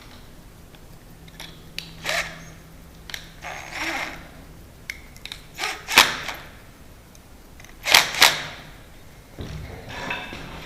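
Irregular sharp clicks and knocks from hand work on a door's mortice lock and strike plate, with the two loudest knocks about six and eight seconds in.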